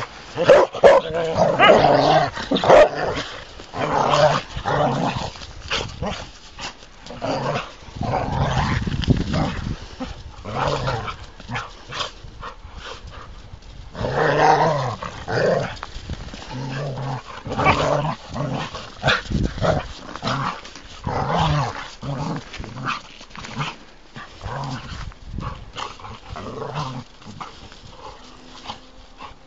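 A Norwegian elkhound and a Welsh springer spaniel play-fighting, growling and barking in short bursts again and again, loudest in the first few seconds.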